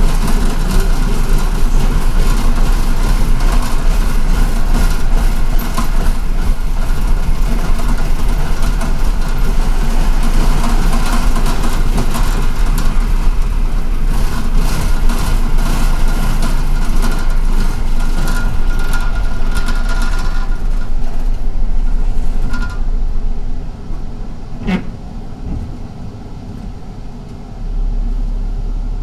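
Inside a moving MTA city bus: engine and road noise with rattling. About three-quarters of the way through it drops off as the bus slows, there is one short sharp sound, and the low engine rumble rises again near the end.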